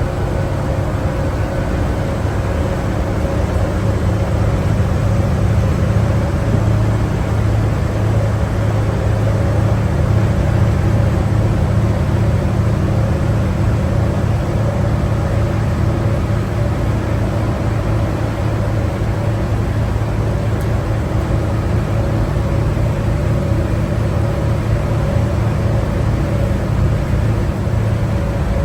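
Inside a 2011 New Flyer D60LFR articulated diesel bus underway: its Cummins ISL9 engine with Allison B500R automatic transmission runs with a steady low drone over road and tyre noise, swelling slightly a few seconds in.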